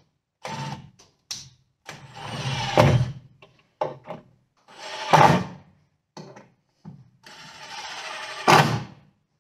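Rough-cut lumber boards being shifted and fitted against a wooden stanchion frame: a series of wood scrapes and knocks, three of them ending in a sharp, loud knock.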